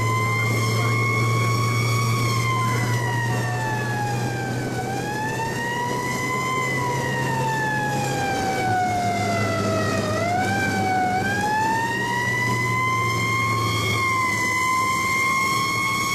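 Fire truck siren wailing, heard from inside the truck's cab: one tone sliding slowly up and down over several seconds, with a deeper dip and a quick rise-and-fall a little after the middle. Under it runs a steady low drone.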